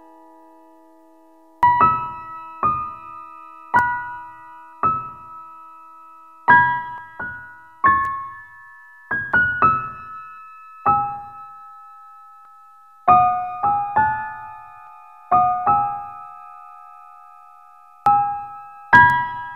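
Background music: a slow, sparse piano melody. A held chord fades out over the first second and a half, then single notes and small chords are struck one after another, each left to ring and fade.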